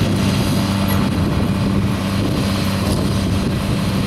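Vehicle engine idling at a steady, even pitch.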